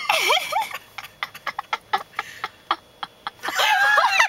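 High-pitched, squealing laughter, breaking into a string of short gasps and catches of breath between two longer squealing laughs.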